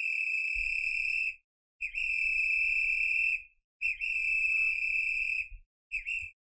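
Roku Voice Remote Pro (2nd gen) sounding its lost-remote finder alert through its built-in speaker: a high-pitched tone played three times, each about a second and a half long with short gaps, then a short fourth tone near the end.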